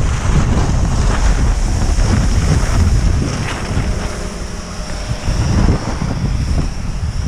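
Wind buffeting the microphone of a camera moving downhill at skiing speed, over a steady hiss of skis sliding on snow. The buffeting eases for a moment around the middle, then picks up again.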